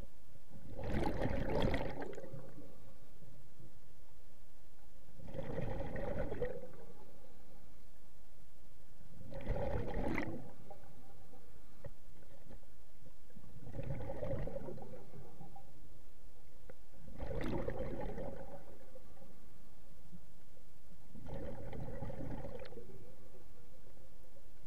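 Scuba diver's regulator exhaust bubbles: a burst of bubbling with each exhalation, about every four seconds, six times.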